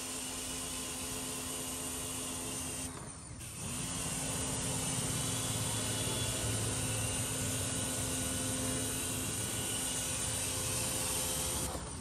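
Electric pressure washer running with a steady motor hum while its jet of water hisses onto the finned coil of a split AC indoor unit. It breaks off briefly about three seconds in, then the motor comes back up to speed.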